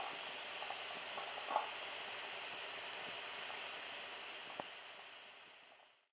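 Wilesco D14 model stationary steam engine under steam, a steady high hiss of escaping steam with a few faint ticks. The sound fades out near the end.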